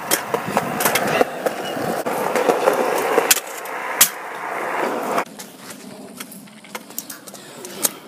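Stunt scooter wheels rolling over concrete, with sharp clacks of the scooter hitting the ground, the loudest about four seconds in. The rolling noise gets much quieter about five seconds in.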